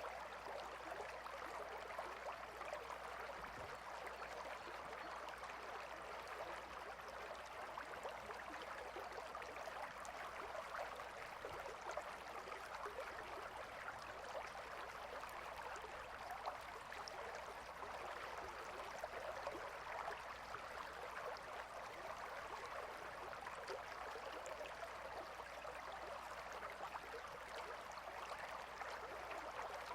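A gentle river flowing: a steady, faint rush of running water.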